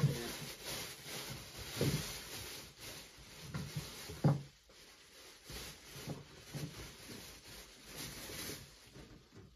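Objects being handled and shifted about, with a few soft knocks as things are picked up or set down, over a steady hiss.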